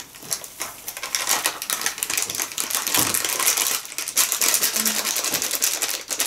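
Foil pouch crinkling and crackling steadily as it is handled and tipped, shaking cocoa powder out into a bowl.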